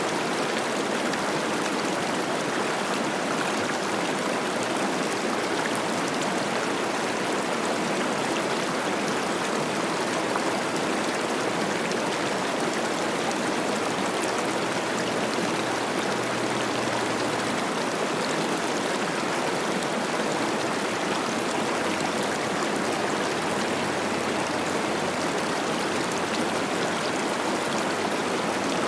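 Cache la Poudre River rushing and babbling steadily, running high with spring snowmelt.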